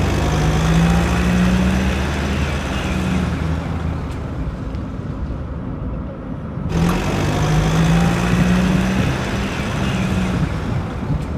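Car cabin noise while driving at highway speed: a steady low engine and road drone with tyre hiss. The hiss fades midway and comes back suddenly about seven seconds in.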